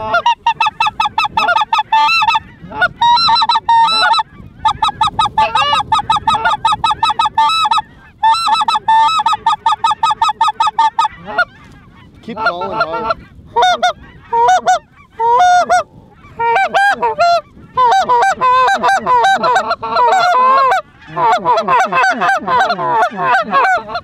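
Geese honking in quick repeated calls: a fast, even run of the same call for about the first half, then more broken-up calls that crowd together and overlap near the end.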